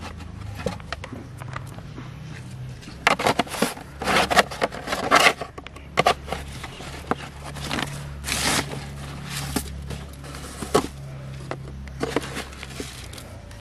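Hands handling plastic bottles, a screw-top plastic jar and a plastic sack while tipping bait powder into a plastic basin: irregular rustling, scraping and clattering, busiest a few seconds in and again around eight seconds, over a low steady rumble.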